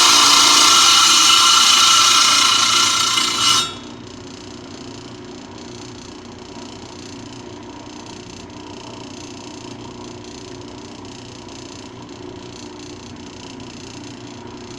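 Lapidary trim saw's diamond blade cutting through rock, a loud, steady grinding whine with held tones. About three and a half seconds in, the whine cuts off suddenly, leaving a much quieter, steady running sound.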